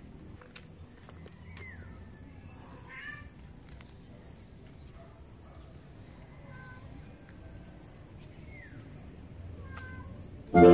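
Scattered short bird calls, chirps and falling whistles, over a faint steady high-pitched tone and low background rumble. Music comes in near the end.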